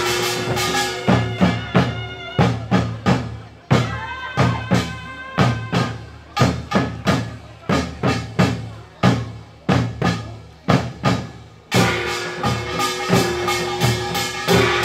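Samulnori drumming: buk barrel drums and janggu hourglass drums beating a driving rhythm of about two to three strikes a second, with metallic ringing over the strokes. A held high tone sounds over the drums near the start and comes back about twelve seconds in.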